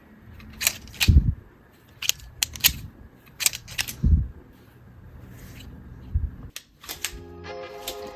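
Sharp plastic clicks and snaps of a 3D-printed PLA gravity karambit fidget knife being flicked open and shut, in quick clusters every second or so, some with a dull thud. Music comes in near the end.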